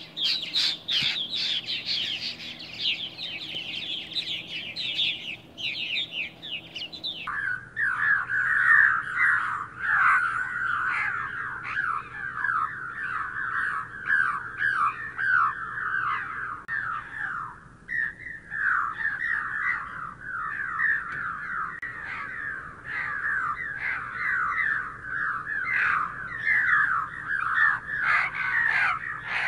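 A flock of purple martins calling in flight, a dense, continuous stream of rapid chirps. About seven seconds in, the calls drop abruptly to roughly half their pitch.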